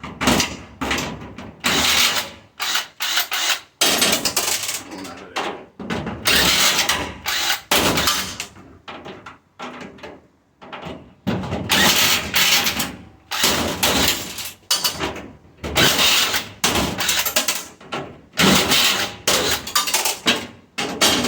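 A handheld power tool runs in repeated short, uneven bursts with brief pauses between them, working on the stainless steel panels of a restaurant dishwasher being taken apart.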